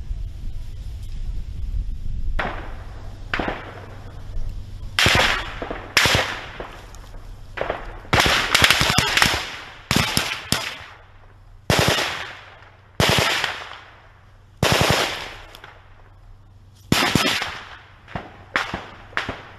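Gunfire: about a dozen separate shots and short bursts of rapid automatic fire, each with an echoing tail. The fire is densest about halfway through.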